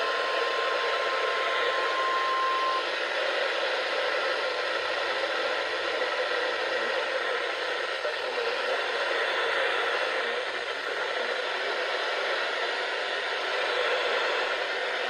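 Weather radio receiver hissing with static, with no broadcast voice coming through. A steady tone sounds over the hiss and stops about three seconds in.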